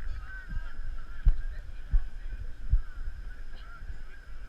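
Faint honking calls, with several short low thumps on the microphone.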